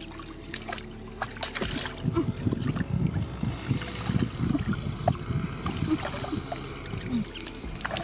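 Shallow muddy water sloshing and splashing as someone wades and gropes with bare hands and feet, busier and louder from about two seconds in.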